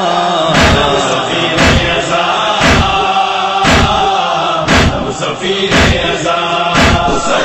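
Group of mourners chanting an Urdu noha lament, with a sharp chest-beating matam strike about once a second keeping time.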